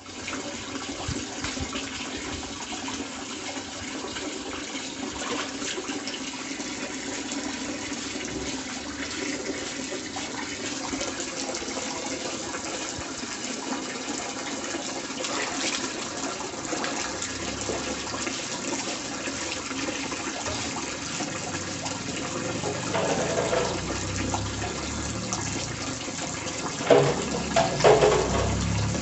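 Tap water running steadily into a large metal basin already full of water, with a few louder sounds near the end.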